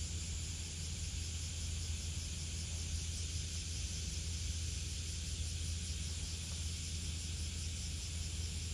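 Steady outdoor background noise: a low rumble with a steady hiss over it, with no distinct events.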